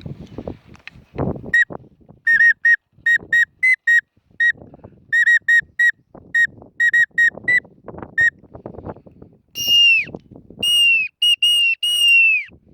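A whistle blown in quick runs of short, clear peeps, then a few longer notes, each falling in pitch as it ends, over low rustling and wind noise.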